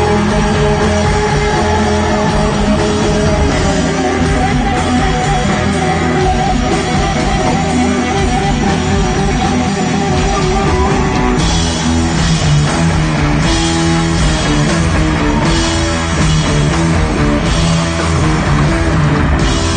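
Loud live noise-rock band playing: distorted electric guitar and bass over a drum kit. From about halfway through, the top end brightens in regular stretches roughly every two seconds.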